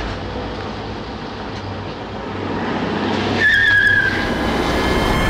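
A Toyota Innova driving in slowly, its running and tyre noise easing and then building again, with a high squeal about three and a half seconds in that slides slightly down and lasts about a second.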